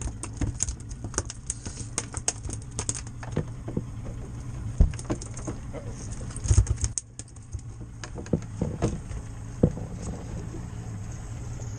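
A freshly landed small tuna thrashing on a fiberglass boat deck, its tail beating in rapid, irregular taps and thumps, with a few heavier thuds about five and six and a half seconds in. A low steady hum runs underneath.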